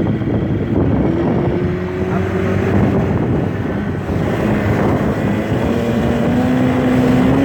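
Two-stroke outboard motor running steadily as the boat moves across the water, its pitch drifting slightly, with wind noise on the microphone.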